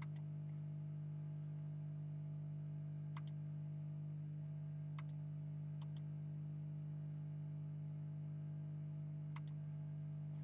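Steady low hum with five sharp double clicks: near the start, at about three seconds, twice around five to six seconds, and once more near the end.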